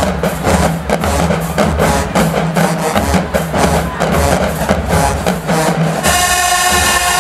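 Dance music with a steady drum beat and bass; about six seconds in the drums drop out and held notes take over.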